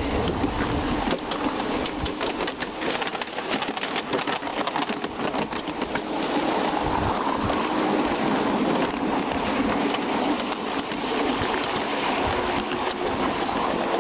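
Coaches of a 5 inch gauge ride-on miniature railway running along the track, the wheels giving a steady rumble with rapid clicking and clattering, busiest over the first half.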